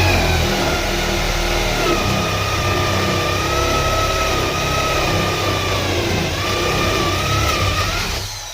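Cheap corded electric drill running under load, boring a 25 mm hole into a hollow-core door, its motor whine wavering as the bit bites. Near the end the trigger is let go and the drill winds down.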